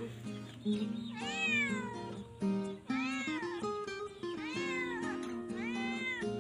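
Cat-like meows repeating about every second and a half, each rising then falling in pitch, over background music with a steady melody.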